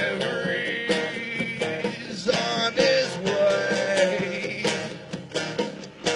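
Acoustic guitar playing a rock song, strummed chords at a steady pace.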